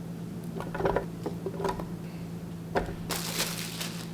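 Cut mango pieces go into a plastic blender jar: a few soft knocks in the first two seconds, then about a second of scraping from about three seconds in, as the rest is pushed off the cutting board.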